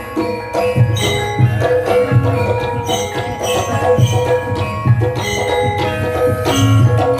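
Javanese gamelan playing: struck metal mallet instruments ring out a repeated melody over low drum beats.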